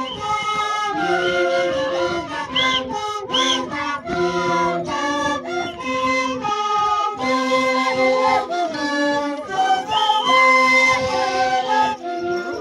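A group of long cane flutes playing a carnival tune together, many held notes moving through the melody in unison.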